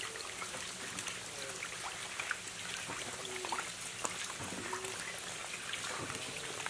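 Live fish thrashing in shallow water, with splashing, dripping and many small wet slaps and clicks at irregular moments.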